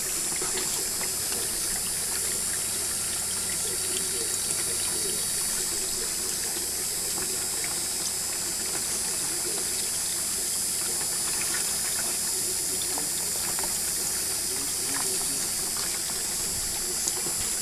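Water running steadily through a small Gold Hog aluminium sluice box fed by a pump at about 350 gallons per hour, splashing and trickling over the matting.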